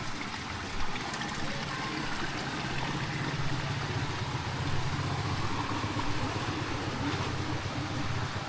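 A steady low engine hum that grows a little louder a few seconds in, over the hiss of running water.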